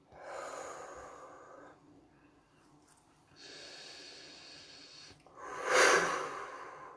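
A woman breathing audibly through three long, airy breaths without voice. The last, about six seconds in, is the loudest and most forceful.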